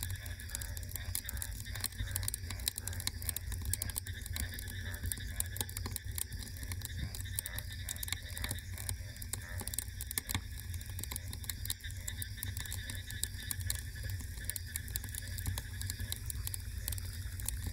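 Wood fire crackling: a dense, uneven run of small pops and snaps over a steady low rumble.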